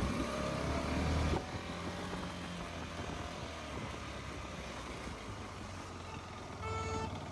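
Motorcycle riding uphill on a winding road, its engine running steadily under wind noise and a little louder for the first second and a half. A short pitched beep sounds near the end.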